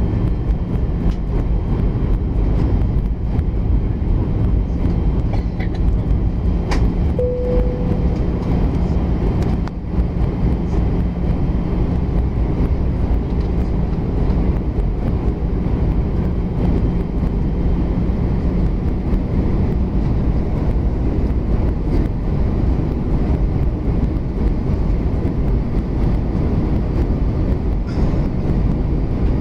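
Steady low rumble of engine and airflow noise inside an Airbus A320 cabin on approach to land, with a faint steady hum under it.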